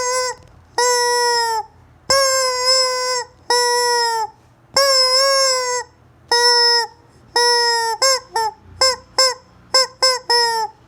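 Rubber chicken squeeze toy squawking as it is squeezed: a series of long honking squawks about a second each, then a quick run of short squawks near the end.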